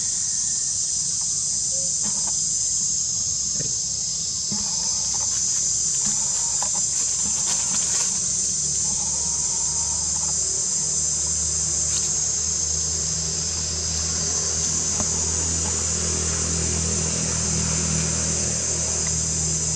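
A steady, high-pitched drone from a chorus of insects that goes on without a break, with a low hum underneath that grows stronger about halfway through.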